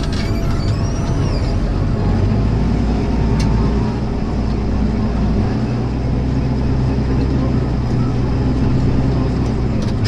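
Tractor diesel engine running steadily under load, pulling a mounted reversible plough through the ground.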